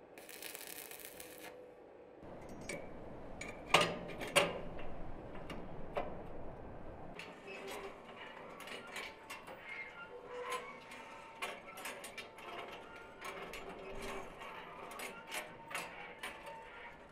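Welding on a steel barbecue frame: a short burst of arc hiss at the start, then metal clanks, two sharp ones a little under a second apart about four seconds in. A run of small metallic clicks and ticks follows.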